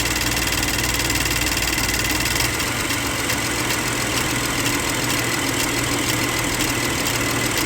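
GM 3.6 V6 engine idling with a misfire on bank 2, caused by a loose harness connector cutting power to a coil. As the harness is pulled up, the sound changes about two and a half seconds in and the idle smooths out.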